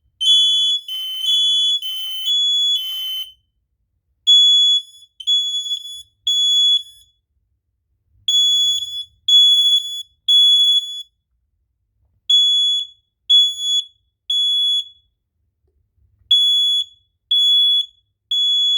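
Kidde smoke alarms on test, sounding the three-beep temporal-three fire evacuation signal with high-pitched piezo beeps. For the first three seconds two alarms at slightly different pitches beep out of step. From about four seconds in a single clean pattern of three beeps and a pause repeats four times.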